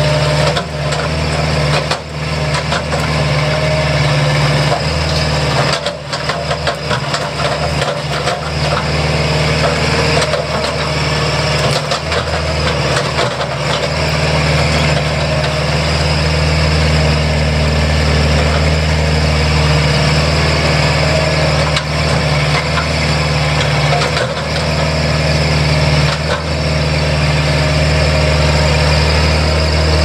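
Bobcat 751 skid steer's diesel engine running steadily, with short stretches of knocking and clatter a few times through.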